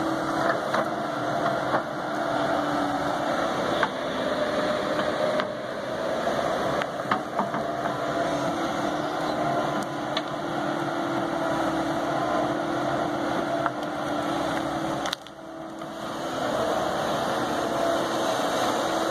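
Kobelco 135 hydraulic excavator's diesel engine running steadily under load as it digs and swings its bucket of dirt, with a few short knocks along the way. The sound drops away briefly about fifteen seconds in, then resumes.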